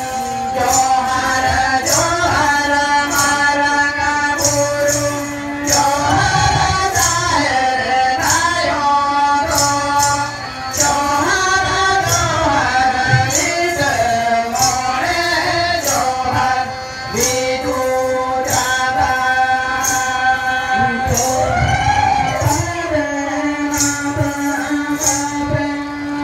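Folk music: a bowed fiddle playing a melody of long held notes with slides, over a jingling percussion beat, with singing.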